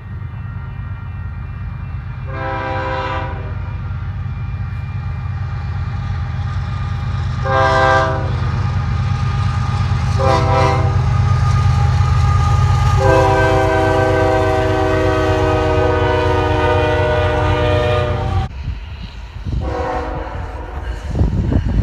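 Nathan K5HL five-chime locomotive air horn sounding four blasts, the last held about five seconds, in the order of a grade-crossing signal. A diesel locomotive engine rumbles low beneath it, and wheels clatter over the rails near the end.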